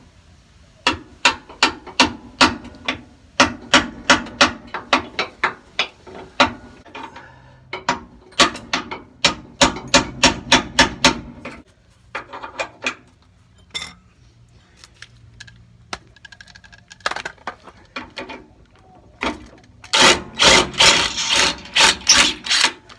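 Hammer striking a steel punch again and again, about two or three blows a second, driving a bolt out of a rear suspension arm. The blows thin out midway, and near the end a cordless impact wrench runs in a rapid hammering burst on the bolt.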